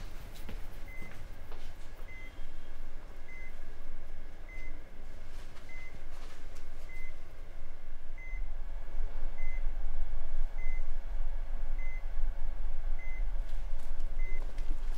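Bedside patient monitor in an ICU giving its heart-rate beep: a short, high beep about every 1.2 seconds, steady and even. A low hum underneath grows louder about halfway through.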